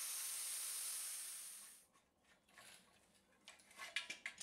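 Angle grinder cutting a groove into aluminium sheet, heard as a steady high hiss that fades away a little under two seconds in. Near the end, a few light clinks and knocks as the aluminium sheet is handled on the steel bench.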